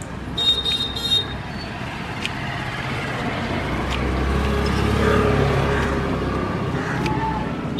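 Street traffic: a motor vehicle passes close by, its rumble building to a peak about halfway through and then fading. A few short sharp clicks sound over it.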